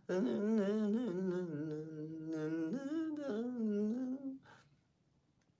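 A man humming a slow, wordless melody in long notes with vibrato, trailing off about four seconds in.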